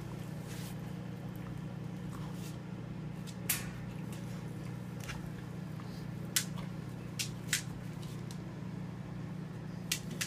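A dog works a red rubber Kong toy with its mouth and paws on a tile floor. The toy gives a few sharp knocks against the floor and cabinet, over a steady low hum.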